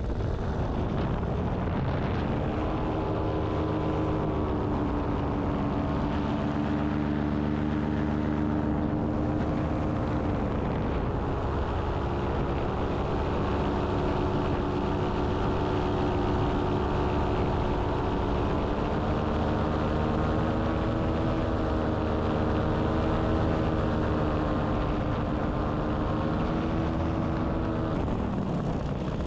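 Paramotor engine and propeller running in flight. The steady drone rises in pitch about two seconds in and wavers slightly as the throttle changes, then drops in pitch near the end as the power comes back.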